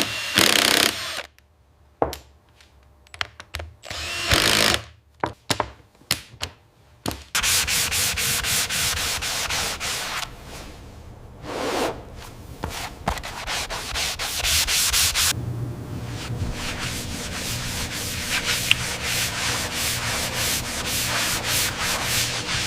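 Rasping, sanding-like noise of wood-processing machinery working wood. It comes in short separate bursts with gaps over the first seven seconds, then runs on continuously with a fast, even pulsing.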